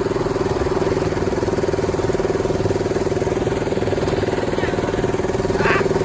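Small engine of a miniature railway locomotive running steadily as it hauls the passenger train, a continuous fast-pulsing drone. A brief higher-pitched sound comes near the end.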